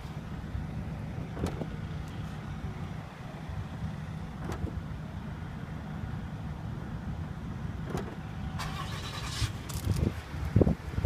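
A few sharp clicks, then thumps near the end, over a steady low rumble: a 2015 Kia Sorento's liftgate and latch being worked. The latch is failing to catch, which the owner takes for a defective latch.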